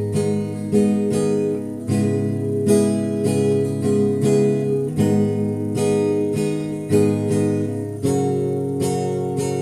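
Acoustic guitar strumming chords, about one strum a second, with no singing.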